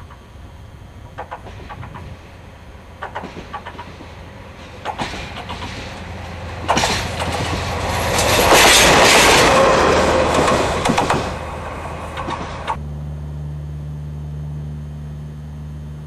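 TDE10 diesel-hydraulic locomotive running light past close by: its wheels click over the rail joints, louder and more often as it approaches, and its engine and wheel noise are loudest as it passes, about seven to twelve seconds in. The sound then cuts to a steady low engine hum.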